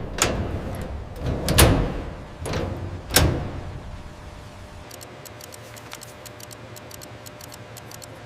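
Four heavy knocks in the first three and a half seconds, each led in by a short sliding rush, then a stretch of faint scattered clicking.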